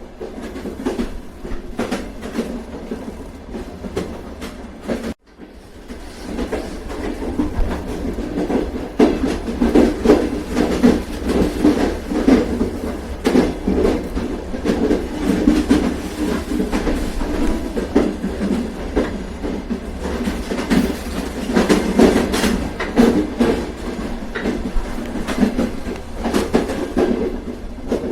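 Train running on rails, a steady rumble with the wheels clicking over rail joints. The sound cuts out briefly about five seconds in, then builds back up.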